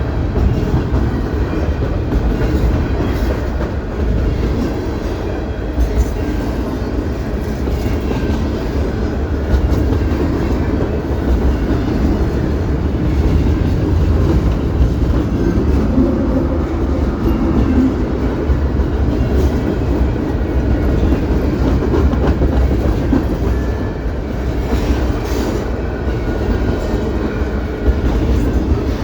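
Canadian Pacific train rolling by: a steady, loud rumble of wheels and cars on the rails, with no horn sounding.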